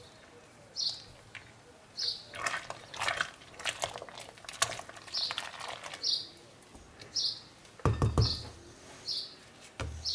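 Wooden spatula stirring and scraping around a stainless steel pot of bubbling curd soap, with a cluster of scrapes and clicks in the middle and a loud knock against the pot about eight seconds in. Short high chirps repeat about once a second throughout.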